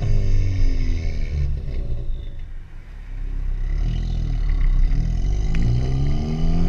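2013 Ford Focus ST's turbocharged 2.0-litre four-cylinder EcoBoost engine running through an aftermarket MBRP exhaust. The revs fall off over the first second or so, dip near the middle, then climb steadily for the rest of the time.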